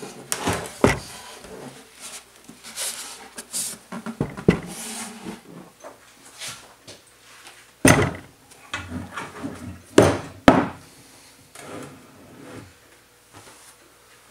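Scrapes and knocks of a small metal lathe being shifted about on a wooden board, with a few sharp knocks, the loudest about eight and ten seconds in.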